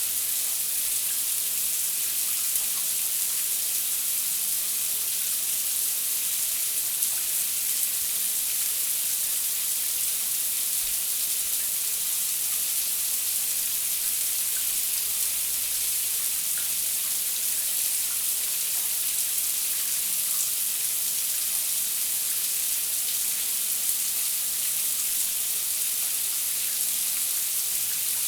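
Shower running steadily, the water spray making an even hiss.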